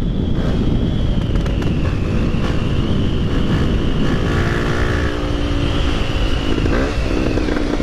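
Honda XR250 Tornado's single-cylinder four-stroke engine, fitted with a kit, an XLX carburettor and a Belparts exhaust, pulling hard while riding. The engine note rises and falls, with a quick dip and climb near the end.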